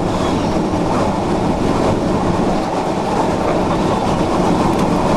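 A loud, steady roar of violent tornado wind, the freight-train-like rumble of a tornado close by, with the wind buffeting the microphone.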